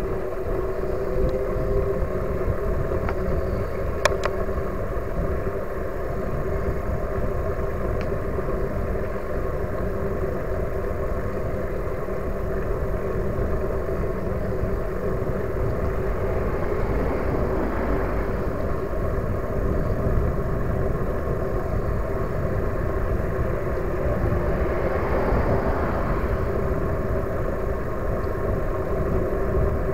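Riding noise of an e-bike on a paved cycle path: wind on the microphone and tyre rumble, with a steady hum underneath. A single sharp knock comes about four seconds in.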